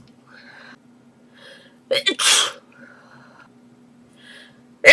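A girl sneezing: one loud sneeze about two seconds in, a quick catch of breath leading straight into the burst. Another sneeze starts right at the end.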